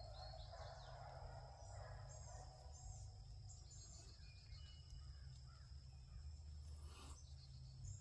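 Near silence outdoors: a few faint high bird chirps, a steady faint high-pitched tone like insects, and a low wind rumble, with one brief rustle about seven seconds in.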